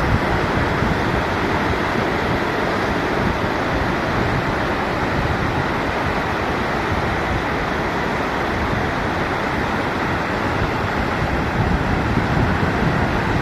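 Floodwater rushing steadily in a swollen mountain river, a loud unbroken noise of water.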